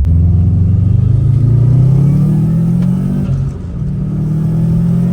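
2006 Subaru STI's turbocharged 2.5-litre flat-four accelerating hard on a pull to check turbo boost: engine speed climbs for about three seconds, drops at a gear change, then climbs again.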